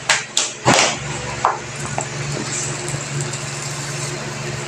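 Kitchen clatter: a few sharp knocks in the first second and a half as cookware and the oil bottle are handled at the stove, over a steady low mechanical hum.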